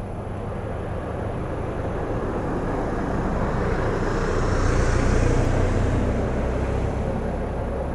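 A road vehicle passing by: a steady rush of tyre and engine noise with a low rumble that swells to its loudest about five seconds in, then fades.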